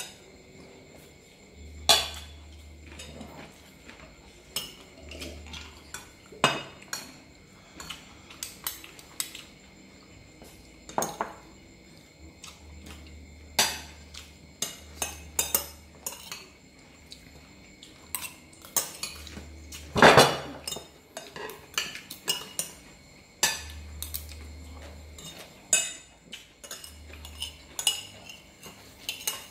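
Metal spoons clinking and scraping on ceramic plates as people eat: irregular sharp clinks every second or so, with one longer, louder scrape about twenty seconds in.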